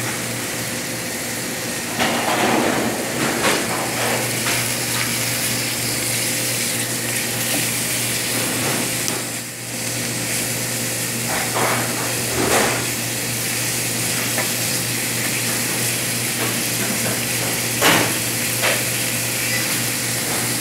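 Chicken breast strips sizzling in oil in a frying pan, with a wooden spatula scraping and knocking against the pan now and then as they are stirred and turned, the sharpest knock about 18 seconds in.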